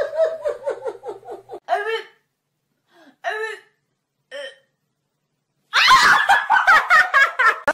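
A person laughing in quick rhythmic bursts, then a few short high-pitched cries, and more laughter near the end.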